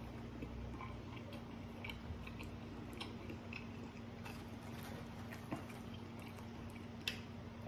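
Faint, scattered light clicks and crackles of tortilla chips being handled and picked up from a food tray, over a low steady hum.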